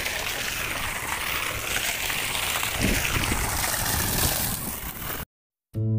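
Water splashing and sloshing in a swimming pool as a swimmer thrashes about. The splashing cuts off suddenly about five seconds in, and music with plucked-string notes starts near the end.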